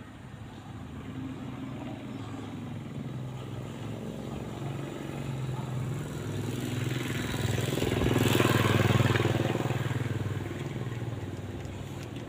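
A motorcycle passing by out of sight: its engine hum grows louder, is loudest about two-thirds of the way through, then fades away.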